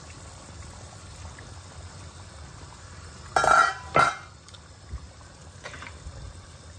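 A thick pepper-and-tomato stew bubbling in a stainless steel pot on a gas hob, with a low steady bubbling. Two short, louder liquid sounds come close together a little past halfway.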